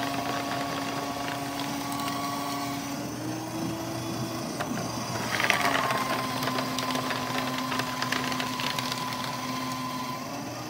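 Royal electric paper shredder cutting sheets of paper, its motor humming steadily. Between the two sheets, about four seconds in, the motor speeds up as the first sheet clears and winds down briefly, then starts again with louder cutting as the second sheet is fed in. The pitch rises again near the end as that sheet finishes.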